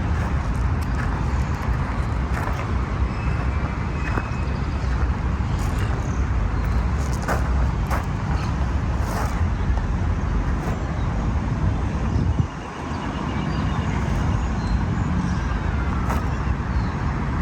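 Steady road-traffic rumble, heavy at the low end, with faint scattered clicks and a brief dip about twelve seconds in.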